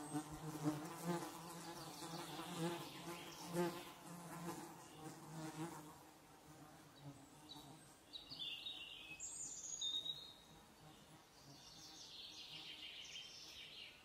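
A flying insect buzzing, its hum wavering in loudness for about the first six seconds, then fading away. In the second half, short high bird calls come in twice.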